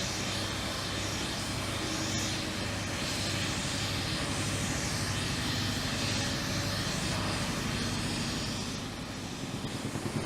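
Steady low mechanical hum under a broad hiss, dipping briefly near the end.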